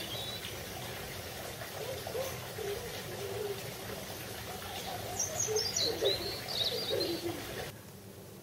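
Doves cooing repeatedly, with a small songbird's high, falling chirps about five to six and a half seconds in. The sound drops away abruptly near the end.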